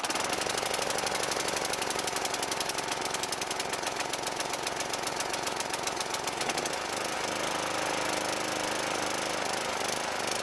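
Briggs & Stratton Quantum 55 single-cylinder petrol engine running steadily on choke with a rapid, even firing pulse, just started. The new ignition module has cured its no-spark fault. The note turns smoother about seven seconds in.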